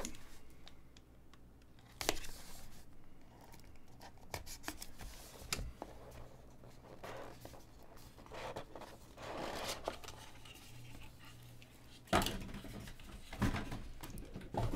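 Shrink-wrapped cardboard trading-card box being cut open and its lid lifted off: scattered scrapes, rustles and taps, with sharper knocks about two seconds and about twelve seconds in.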